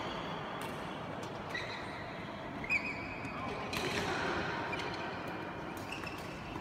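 Badminton rally: racket strikes on the shuttlecock, the sharpest about two and a half seconds in, with short squeaks of shoes on the court floor.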